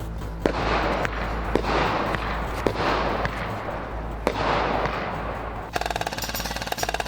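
Airsoft guns firing: a few single sharp shots among swells of noise, then, near the end, a rapid full-auto burst from an airsoft electric gun, a fast even rattle with a buzzing tone running through it.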